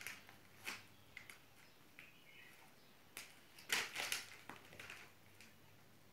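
Crinkling of a plastic surprise-bag packet and small clicks as toys are handled, in a few short bursts, the loudest about four seconds in.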